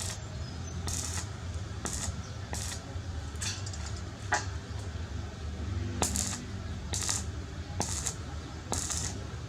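Metal being worked, with repeated short metallic clinks and scrapes about once a second over a steady low hum.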